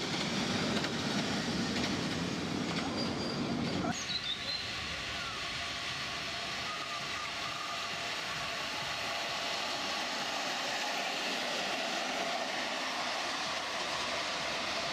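Ride-on miniature railway train running along the track, its wheels rumbling on the rails. About four seconds in, the heavy rumble gives way abruptly to a lighter, quieter running noise.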